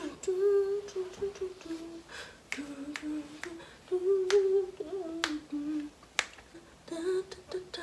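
A woman humming a tune with her lips closed, held notes stepping up and down, with several sharp finger snaps in time.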